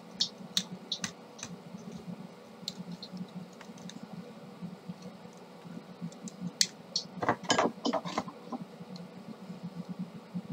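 Small plastic parts of a Kyocera M5526 toner cartridge clicking and tapping as they are handled and fitted by hand, a spring going into the latch assembly. A run of louder clicks comes about seven to eight seconds in, over a low steady hum.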